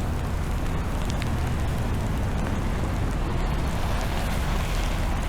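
Steady street noise in a heavy snowstorm: wind rumbling on the microphone over a low hum of traffic, with no distinct events.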